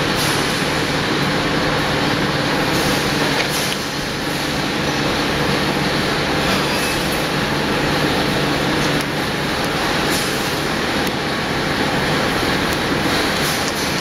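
Steady din of factory machinery running, a continuous mechanical noise with a low hum, and a few light metallic clicks scattered through it.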